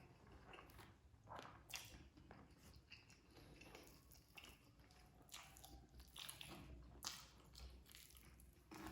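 Faint close-up chewing of nasi padang, with a scattering of short, soft crunches and mouth clicks.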